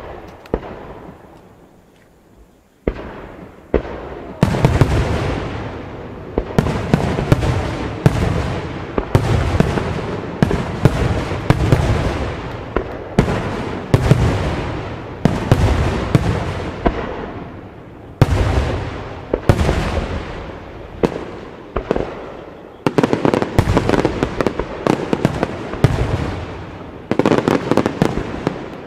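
Aerial firework shells bursting. A few single bangs come first, then from about four seconds in a steady barrage of booms in quick succession, each one trailing off slowly before the next.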